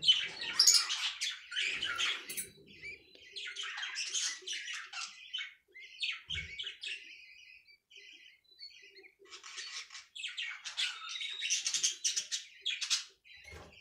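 Budgerigar nestlings squawking in repeated harsh bursts, quieter for a few seconds in the middle.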